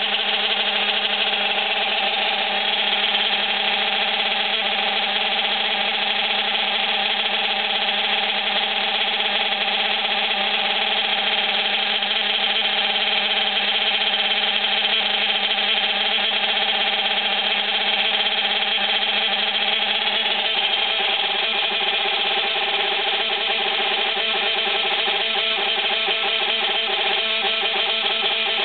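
CEN Nemesis RC truck's small engine running steadily at idle, with a steady whine of several tones over it: a rough idle that the owner puts down to a gear mesh problem.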